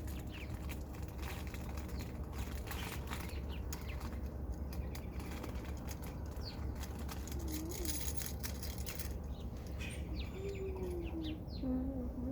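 Rustling with many small clicks and crackles over a steady low hum; near the end a short wavering hum rises and falls.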